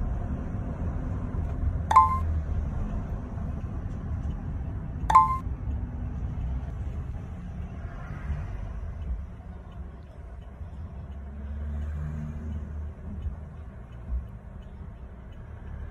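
Low steady rumble inside a car cabin, with two short, bright ringing pings about three seconds apart.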